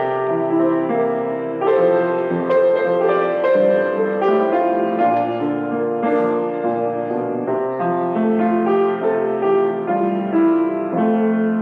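Offertory music played on a keyboard instrument: slow, held chords with a melody moving over them.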